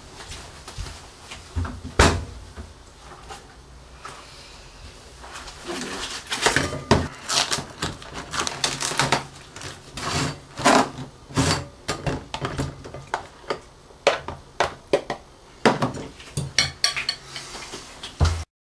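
Kitchen clatter: a ceramic bowl, a spoon and plastic food tubs being handled, with a clear plastic lid pulled off and repeated knocks and clinks on the tabletop.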